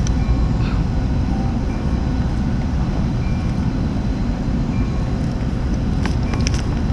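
Steady low rumble of a large ship's engines running on the water, with a few faint clicks near the end.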